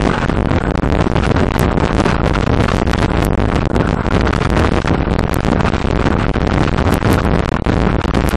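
Loud, steady wind buffeting and road noise on a bicycle-mounted camera's microphone while riding on asphalt, with many small clicks and knocks throughout.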